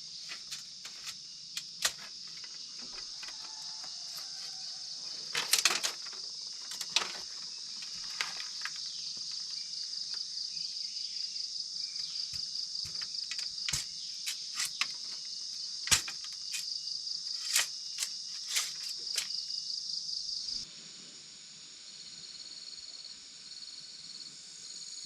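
Steady, high chirring of insects in the forest, with scattered sharp knocks now and then; about three-quarters of the way through the chirring suddenly changes to a quieter, pulsing tone.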